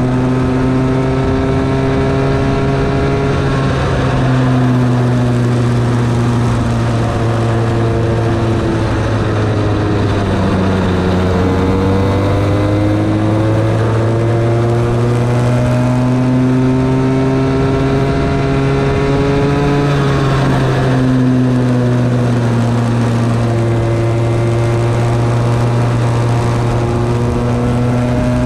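Bambino go-kart engine running flat out, heard from a camera mounted on the kart. Its note climbs slowly for several seconds and then drops back about three times, around 4, 10 and 21 seconds in, as the kart speeds up along the straights and slows for the corners.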